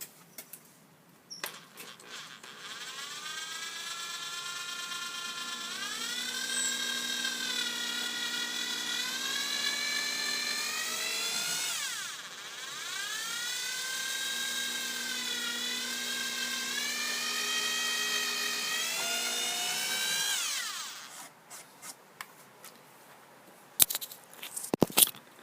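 Power drill boring two holes, in two runs of about ten and eight seconds with a short break between. The motor's whine rises in pitch as each run starts. A few sharp clicks come near the end.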